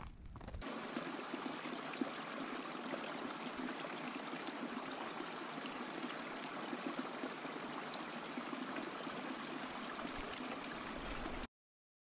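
Small mountain creek running over rocks with a little cascade: a steady babble of water. It cuts off suddenly near the end.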